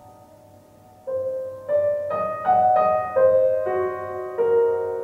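Solo piano music played back over a hi-fi stereo system: a chord fades out, then about a second in a slow line of single notes begins, roughly eight notes a half-second or so apart, the last one held.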